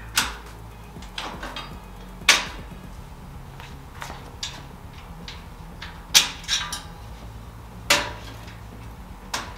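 A series of sharp, irregularly spaced metal clinks and clicks, loudest about two, six and eight seconds in, as the pins are pulled out of the rails of a folding metal-mesh hitch cargo carrier.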